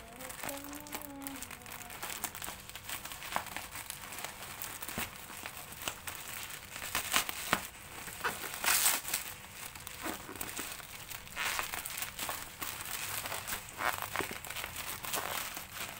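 Thin plastic courier mailer bag crinkling and rustling as hands grip and turn it over, in irregular crackles with a few louder crunches.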